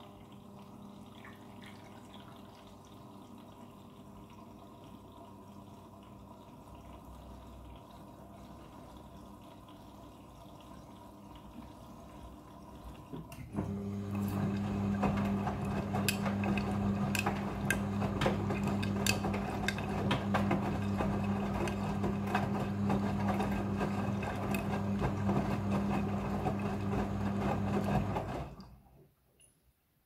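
Front-loading washing machine in its rinse cycle: a low steady hum with water running for the first half, then about halfway through the drum motor starts with a louder hum as the drum turns, the wet clothes and water sloshing with scattered knocks and splashes. It stops shortly before the end.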